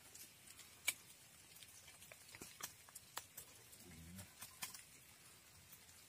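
Near silence broken by scattered faint ticks and clicks, with one sharper click about a second in and a faint low murmur around four seconds in.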